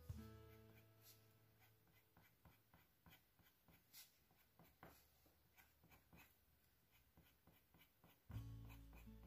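Faint scratching of a coloured pencil on paper in many short, quick strokes, flicking in fur. Soft background music plays under it: a chord fades away at the start and another comes in near the end.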